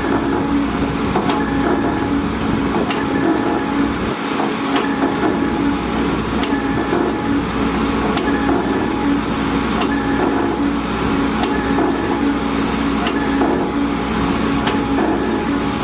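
Volvo EC210DL excavator's diesel engine running steadily under work, with sharp metallic knocks every second or two.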